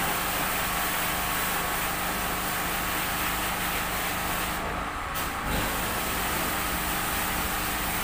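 Pressure washer spraying water onto a car's body and windows: a steady hiss that breaks off twice for a moment about halfway through.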